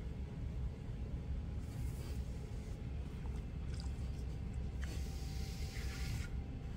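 Electric potter's wheel running steadily with a low hum and a faint whine, under the wet rubbing and squishing of hands working soft clay as the well of a cylinder is opened. The wet rubbing comes in short stretches about two seconds in, around four seconds, and from about five to six seconds.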